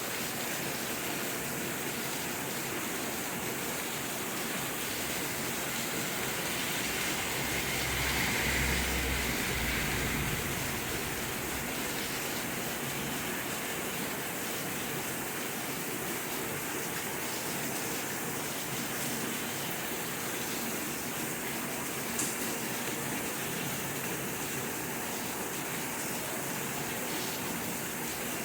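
Steady rain falling, an even hiss. A low rumble swells briefly about eight seconds in, and there is a single faint tick about twenty-two seconds in.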